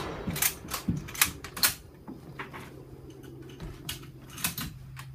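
Sharp metallic clicks and clacks of a bolt-action rifle being handled after a shot, several in quick succession in the first two seconds and a few lighter ones later. A low steady hum sets in about two seconds in.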